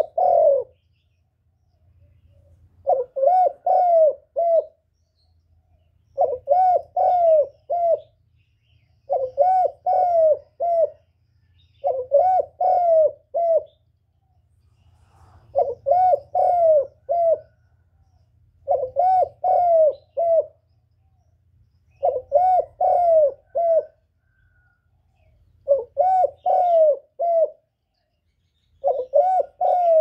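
Spotted dove cooing: a short phrase of three or four notes, repeated about every three seconds, about ten times over.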